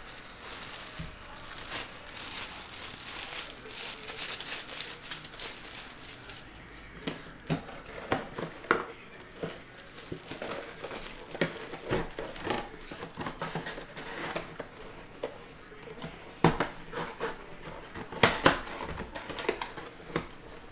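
Clear plastic wrapping crinkling as a boxed autographed baseball is unwrapped and its cardboard box opened by hand: a steady crinkle for about the first six seconds, then scattered sharp crackles and knocks.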